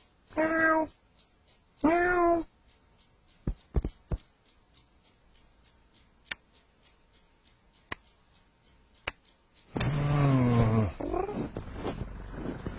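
Domestic cat meowing twice in the first few seconds, each meow short and pitched. Then a few scattered sharp clicks. Near the end comes a louder, lower drawn-out sound falling in pitch, followed by rustling.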